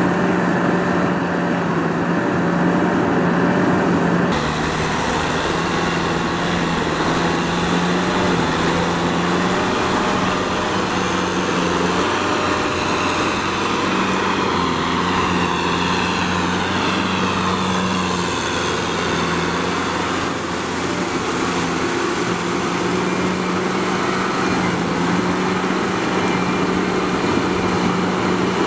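Kubota M6040SU tractor's diesel engine running steadily under load as it pulls a rotary tiller through deep, wet mud.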